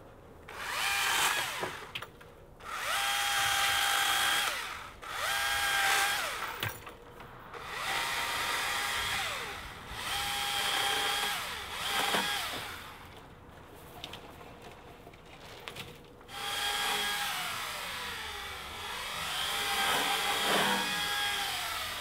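Husqvarna T535i battery chainsaw cutting small branches in about six short bursts. Each run is a steady electric whine that spins up, holds while cutting, and falls away as the trigger is released. The last and longest starts about three-quarters of the way through.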